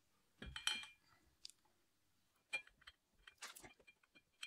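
Faint metallic clicks and clinks of a BMW Z4 E85 driveshaft's front end and rubber flex disc being worked by hand onto the transmission's centering pin. The loudest cluster of clinks comes about half a second in, and a second cluster comes a little past three seconds in, with single ticks between them.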